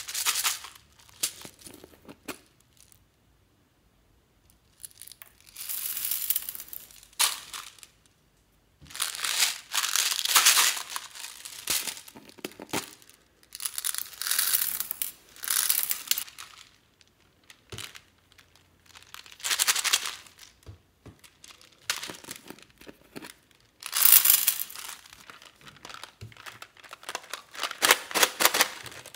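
Small beads pouring out of plastic tubes into a glass dish heaped with beads, a rattling, hissing cascade in about six separate pours with short pauses between them.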